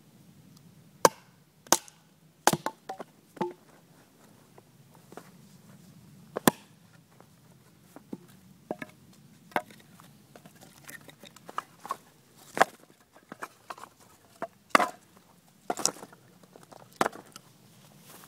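Ka-Bar Large Heavy Bowie knife chopping into a wooden log, a dozen or so irregular sharp chops, the loudest about a second in, at about six seconds and again around fifteen seconds.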